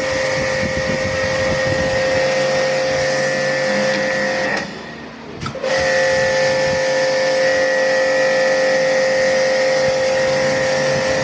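A motor-driven machine running with a steady whine. It cuts out for about a second near the middle, then starts again at the same pitch.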